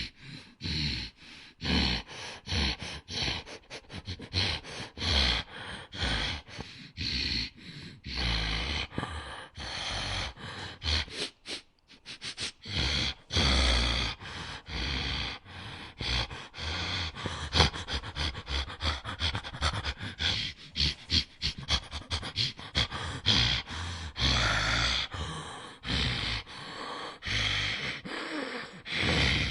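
Werewolf breathing-and-sniffing sound effect: a long run of short, rapid breaths and sniffs, with a brief pause about twelve seconds in.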